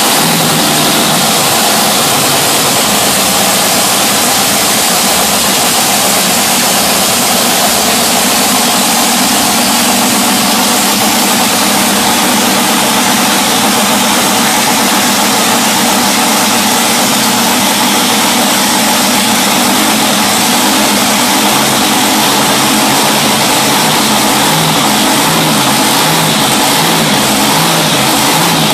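Supercharged drag-boat engine running steadily at idle, loud and unbroken, just after being primed and started.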